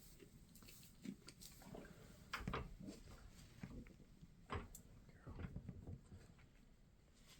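Faint rustling with a few soft knocks and clicks scattered through, the loudest about two and a half seconds in and again a little past four and a half seconds.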